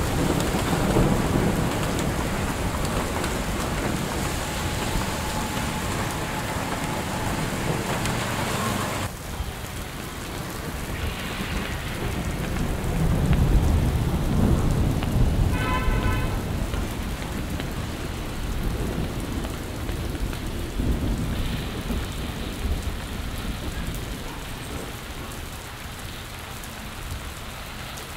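Heavy rain falling on a street: a steady hiss with low rumbling swells. The sound changes abruptly about a third of the way in, and a brief pitched tone sounds just past halfway.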